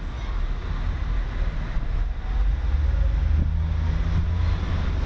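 Low, uneven outdoor rumble, growing louder about two seconds in, with a faint steady hum in the second half.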